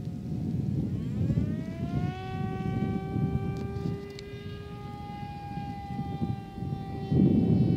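Parkzone Icon A5 RC foam plane's electric motor and propeller whining. The pitch rises about a second in as the throttle opens, then holds steady and sags slightly near the end. Wind rumbles on the microphone throughout, louder near the end.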